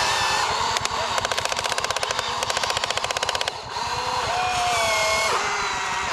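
Machinery running with a whine that shifts up and down in pitch. Early on a fast, even rattle of about a dozen knocks a second starts and lasts close to three seconds.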